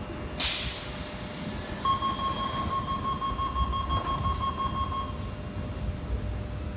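Sydney Tangara train doors closing: a short, loud hiss about half a second in, then the steady door-closing warning tone for about three seconds while the sliding doors shut. Train rumble runs underneath.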